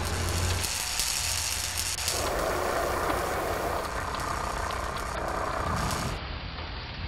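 Steady hissing, sizzling noise of sparks flying from metal being cut, turning into a fuller rushing sound like flames about two seconds in. It becomes duller near the end.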